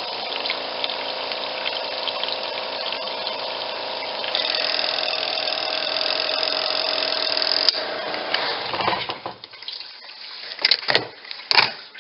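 Twin-tub washing machine's spin dryer running with water spinning out of the clothes. The sound changes about four seconds in, then after a click the drum winds down to a stop. A few sharp knocks follow near the end.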